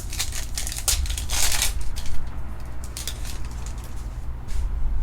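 Crinkling and tearing of a trading-card pack's foil wrapper, with short clicks and rustles of cards being handled.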